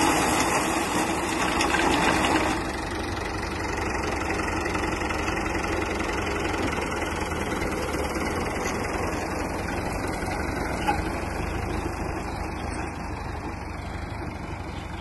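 Fiat 640 tractor's diesel engine running steadily while it drives a front-mounted reaper cutting wheat. It is louder for the first couple of seconds, then drops and stays steady as the tractor moves past and away.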